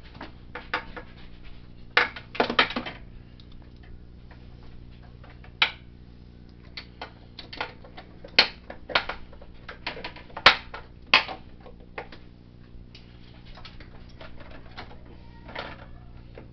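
Ratchet wrench clicking in short irregular runs as a stubborn bolt on a walk-behind mower's shifter cable bracket is worked loose, with a few sharper metallic clicks standing out in the middle. A steady low hum runs underneath.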